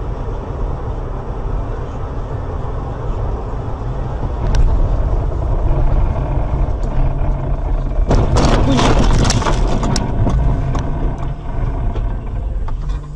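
Car road and engine rumble heard from inside the cabin by a dashcam, driving on a slushy highway. About eight seconds in there is a louder burst of crunching and rattling that lasts a couple of seconds.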